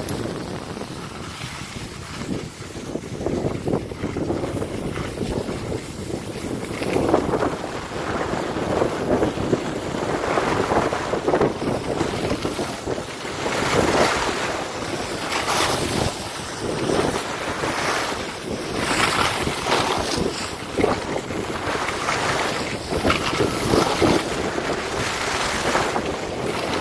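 Wind rushing over the microphone of a camera carried by a downhill skier, swelling and falling in uneven gusts, with skis scraping and hissing over the packed snow through carved turns.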